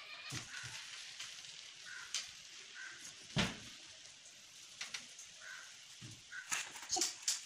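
Wax crayon scratching across paper laid on a glass tabletop as a line is drawn, with scattered small clicks and taps; the loudest knock comes about three and a half seconds in, and a few more knocks come near the end.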